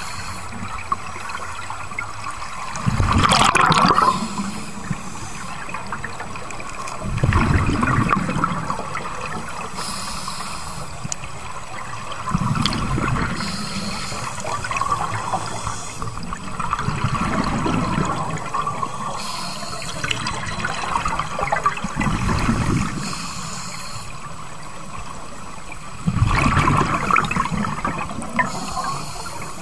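Scuba regulator breathing underwater: six bubbling exhalations about every four to five seconds, with short hissing inhalations between them.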